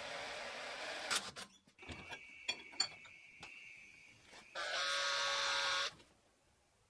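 Cordless drill with a twist bit drilling through steel flat bar clamped in a vise. The motor runs and stops about a second in, a thin high steady tone with a few clicks follows as the bit cuts, then the drill runs loudly for over a second and cuts off suddenly.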